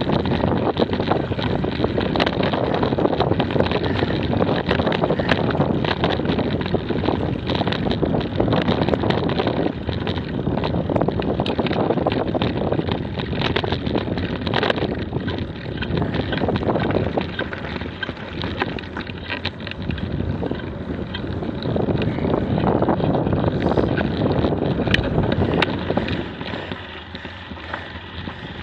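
Off-road bicycle riding a dirt track: wind buffeting the action camera's microphone over the rumble of the tyres, with frequent small clicks and rattles. It quietens near the end as the bike slows.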